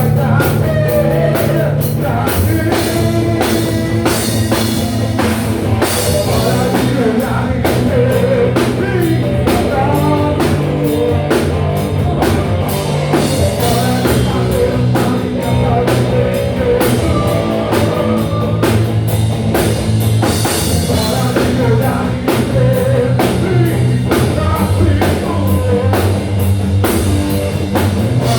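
Live rock band playing a song: drum kit, electric bass and guitar with keyboards, under a sung lead vocal.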